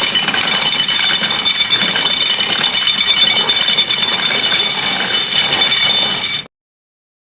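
A loud, steady, high buzzing drone that cuts off suddenly about six and a half seconds in.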